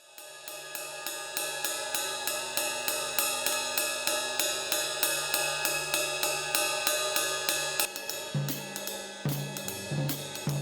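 Music with a drum kit keeping a steady beat of cymbal or hi-hat hits, about three to four a second, over sustained chords; the bass line changes to short repeated notes about eight seconds in.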